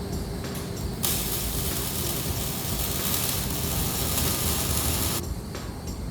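A steady, loud hiss from a tool in an exhaust shop. It starts abruptly about a second in, runs for about four seconds and cuts off suddenly, over a low background rumble.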